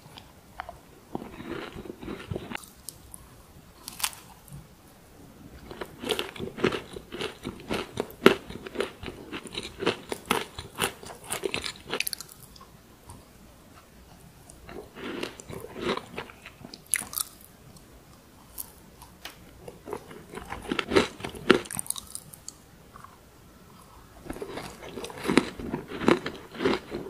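Crunchy chocolate chip cookies being bitten and chewed: bursts of crunching a few seconds long, with short quiet pauses between them.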